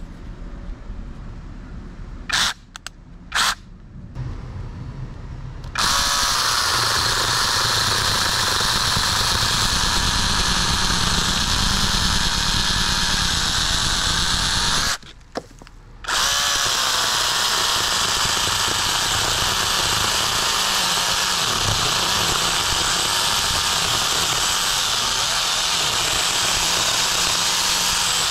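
Cordless 6-inch mini chainsaw with a brushless motor cutting through a small tree trunk. Two short blips of the motor come first, then the motor spins up to a loud steady whine with the chain cutting into the wood. It stops for about a second midway and spins up again.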